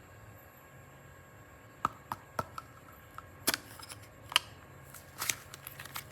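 Light, separate clicks and taps of small objects being handled on a hard surface, starting about two seconds in and coming more often toward the end.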